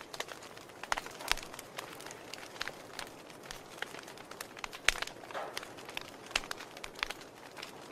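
Wood fire crackling in a fireplace: irregular sharp pops and snaps over a soft steady hiss, with the loudest pops about a second in and again near five seconds.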